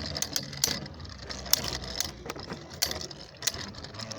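Beyblade Burst tops and launcher in a plastic stadium: a run of sharp, irregular plastic clicks and clatter.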